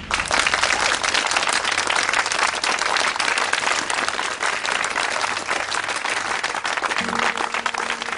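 A group of people applauding, a dense crackle of many hands clapping that starts suddenly and goes on steadily. A low held tone comes in near the end.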